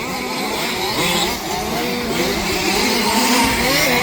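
Several 1/5-scale two-stroke petrol RC off-road cars racing, their small engines revving up and down over one another.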